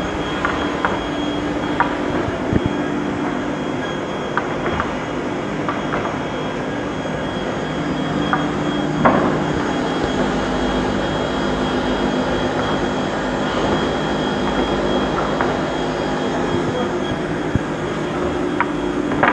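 Perun MSP-1550 Skat single-shaft multi-rip circular saw (22 kW) running steadily while ripping a stack of thick plywood into strips. A few sharp knocks come through, the loudest about nine seconds in.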